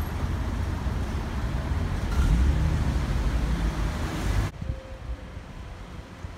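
Town-street traffic: cars driving past with a steady low rumble. It cuts off abruptly about four and a half seconds in, leaving quieter outdoor sound with light wind buffeting the microphone.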